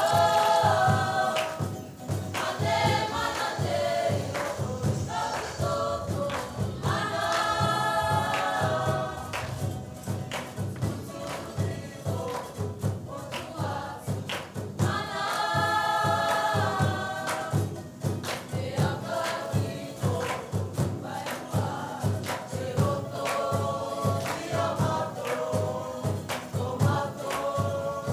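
Group of voices singing together in chorus over fast, steady drumming, as from a Cook Islands dance group's singers and drummers.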